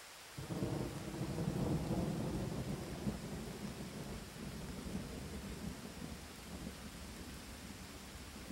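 A rumble of thunder over a steady hiss of rain. It starts suddenly about half a second in, swells for a second or two, then slowly dies away.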